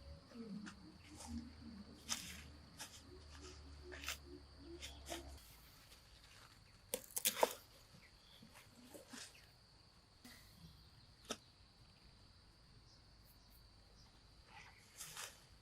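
Quiet outdoor sound: a steady high drone with scattered sharp clicks and knocks, and a brief burst of louder knocks about seven seconds in.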